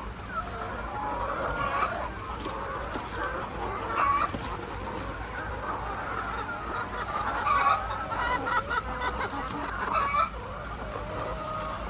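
A flock of chickens clucking, many short overlapping calls, with a few louder squawks about four, seven and a half, and ten seconds in.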